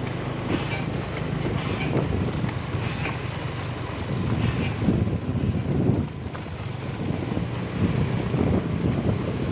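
Motorcycle engine running at steady riding speed, with wind noise on the microphone.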